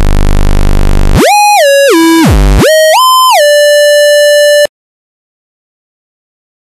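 Square-wave tone from a 4046 CMOS phase-locked loop chip's voltage-controlled oscillator, its pitch swept by the control voltage. It starts as a low buzz, glides up to a high tone, steps down, dips back to a low buzz, rises again and holds a mid pitch. It cuts off suddenly near the end.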